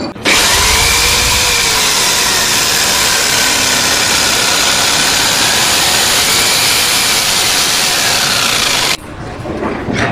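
A loud power tool running steadily, with a faint rise and fall in pitch, starting suddenly and cutting off about nine seconds in.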